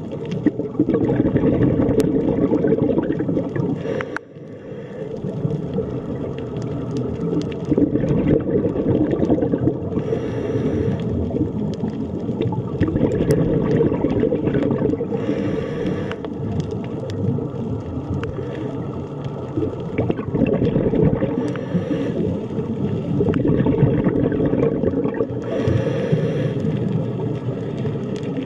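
Underwater ambience: a dense, steady low rumble with brief hissier swells about every five to six seconds.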